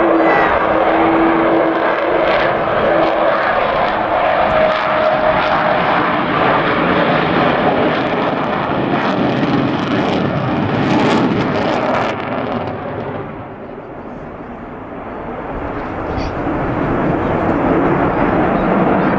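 Avro Vulcan's four Olympus turbojets roaring as the bomber flies past, with a steady tone through the first few seconds. The roar fades about two-thirds of the way through, then builds again.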